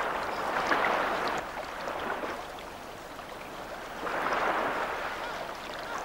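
River waves washing and lapping, the rush swelling and fading over a few seconds.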